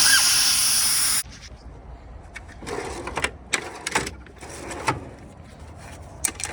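Pressurised nitrogen hissing loudly as it is vented from a car's A/C system after a leak test, cutting off suddenly about a second in. After that come only faint scattered clicks and knocks.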